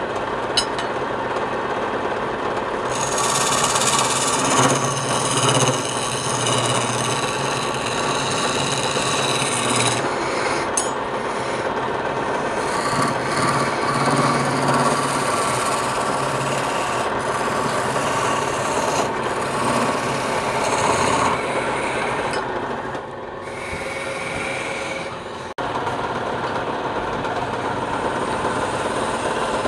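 Wood lathe running while a turning tool or abrasive rasps and rubs against the spinning wood: a continuous scraping over a low motor hum, changing in texture several times.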